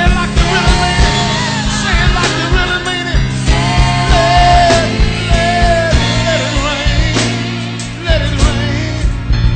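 Live gospel praise-and-worship music: a band with drums and bass backing a singer.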